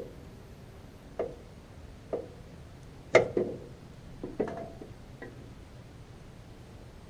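Metal parts and tools clinking and knocking: about seven separate sharp knocks, the loudest about three seconds in, one of them followed by a short metallic ring.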